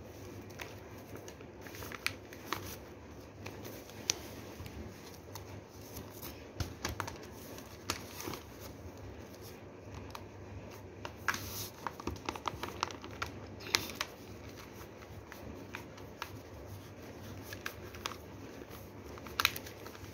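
Newspaper pages rustling and crinkling as they are cut with scissors and handled, with sharp snips and paper clicks scattered irregularly throughout.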